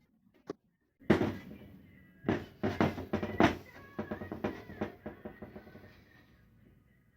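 Background music that comes in suddenly about a second in, with heavy drum hits over held tones, then eases off.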